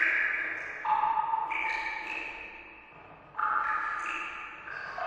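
Water drops falling into water, each drop a pitched plink that rings on with echo and fades slowly. About six drops, some following one another closely, at different pitches.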